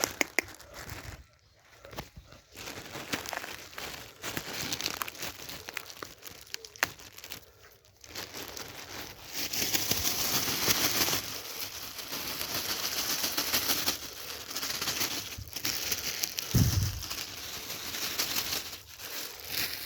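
Spinach leaves rustling, crackling and tearing while a donkey is hand-fed, with a denser stretch of crinkling through the second half and one short low sound about three-quarters of the way in.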